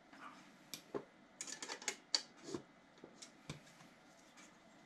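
Faint scattered metallic clicks and ticks as nuts on the threaded tie rods of a large air variable capacitor's frame are loosened a quarter turn at a time, to ease the tension on the rotor shaft. The clicks fall mostly in the first three and a half seconds.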